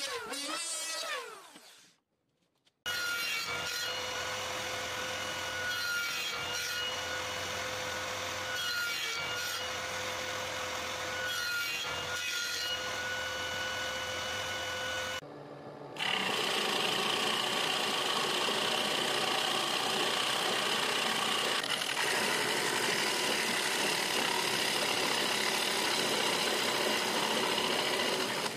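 An electric hand planer spinning down with a falling whine, then a table saw running steadily with a few brief dips in its note. About halfway through, a louder drill press takes over, boring into wood with a Forstner bit.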